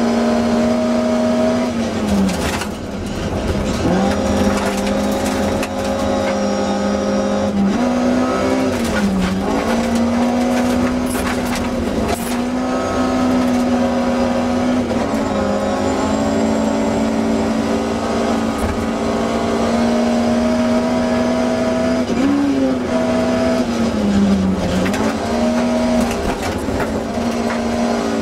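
BMW 320i E30 Group H rally car's engine running hard at high, mostly steady revs, heard from inside the cabin. The revs dip briefly and climb back a few times, over steady gravel and tyre noise.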